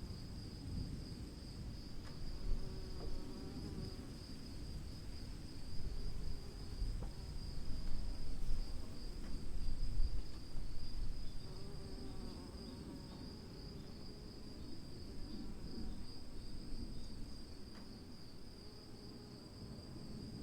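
Afternoon storm ambience: insects trilling steadily at a high pitch over a low, rumbling noise that swells about halfway through and then eases.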